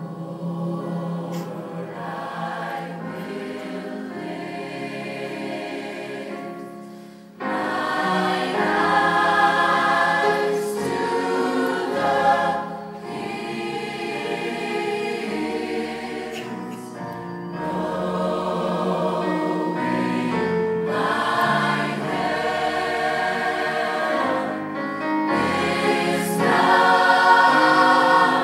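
Large mixed choir singing in many parts. The sound gets louder and fuller about seven seconds in, when low bass notes join.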